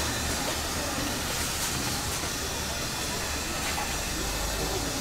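Steam hissing steadily from a food steamer tray, over a low background rumble.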